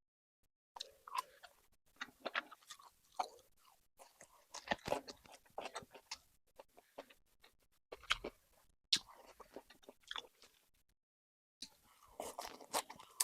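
Close-up chewing and biting of coconut-braised intestines: quiet, irregular wet smacks and small crunches with short pauses between mouthfuls.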